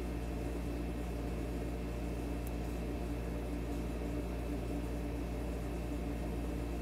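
Steady low hum with a faint hiss underneath: constant background noise with no distinct event.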